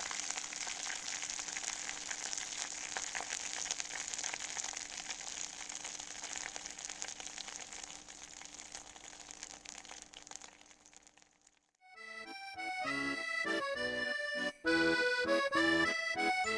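Butter browning in a saucepan: a dense crackling sizzle that gradually quietens and fades away about ten seconds in, the quietening that signals the water has cooked off and the butter is colouring. After a short pause, background music starts.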